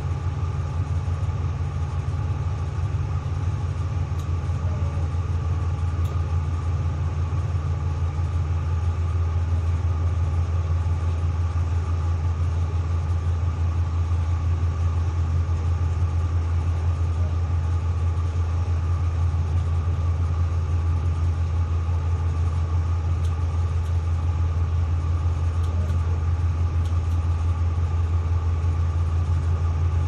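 Tugboat's diesel engines running steadily under moderate power while pushing a barge ahead, heard as a deep, even drone from inside the wheelhouse. The drone gets slightly louder about nine seconds in.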